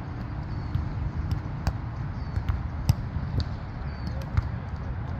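Volleyball being hit during play on grass: several sharp smacks, the loudest about three seconds in, over a steady low rumble.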